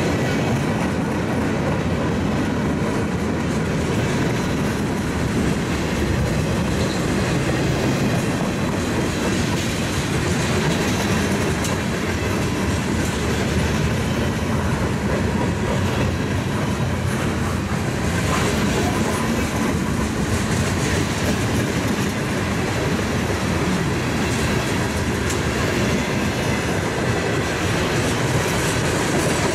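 Freight cars of a long mixed freight train rolling past close by, a steady rumble of steel wheels on the rails with a few sharp clicks.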